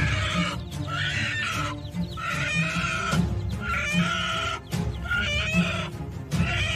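Domestic hen giving harsh, raspy squawks over and over, about one a second: defensive calls at a young eagle. Background music with steady low notes runs underneath.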